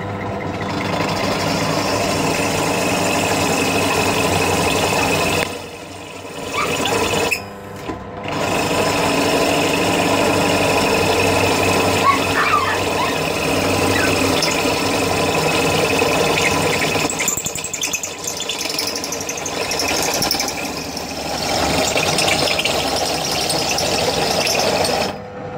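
Pillar drill's boring bit cutting into a galvanised steel scaffold pole, the cutter squealing against the metal over the hum of the drill. The cut drops away briefly twice, about six and eight seconds in, and again just before the end.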